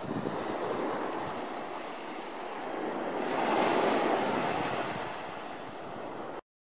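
Small waves breaking and washing up a sandy beach, swelling louder about three and a half seconds in. The sound cuts off suddenly near the end.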